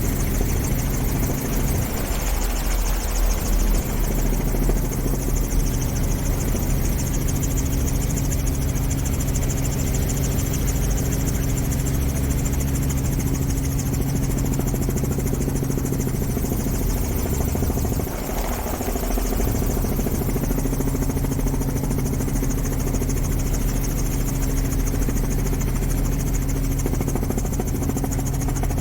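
An engine running steadily, a constant low drone with a brief change in its sound a couple of seconds in and again just past halfway.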